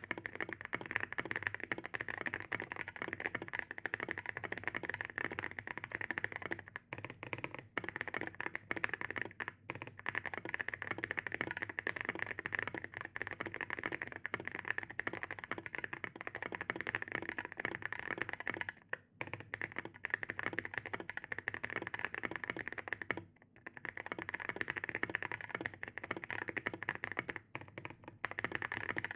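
Fast, continuous typing on a custom mechanical keyboard with a 'creamy' sound. It has lubed and filmed Gazzew Boba U4T tactile switches on a polycarbonate plate, in a foam-modded KBDFANS aluminium case, with SA-P keycaps. The typing breaks off in a few short pauses.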